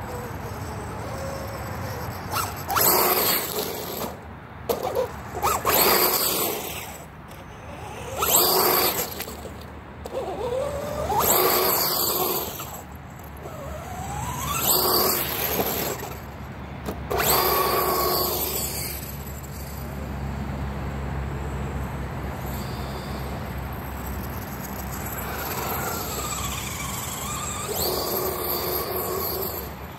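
Losi DBXL-E 2.0 1/5-scale electric RC buggy making fast passes across grass, its brushless motor whining and rising in pitch as it accelerates, with the tyres tearing through the turf. About six passes come in quick succession, a quieter stretch follows, and one more pass comes near the end. It runs on a small pinion gear that limits its top speed.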